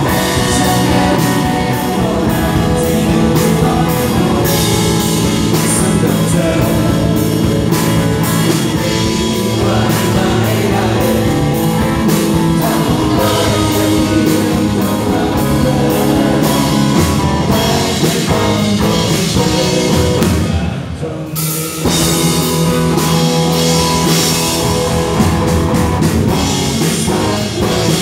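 Live rock band playing a song: acoustic and electric guitars and drums under a singer. The band briefly drops out about three-quarters of the way through, then comes back in full.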